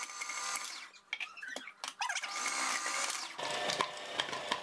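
Electric food processor running, its grating disc shredding chunks of sweet potato pushed down the feed tube. The motor whine drops out briefly about a second in and turns fuller and lower about three and a half seconds in.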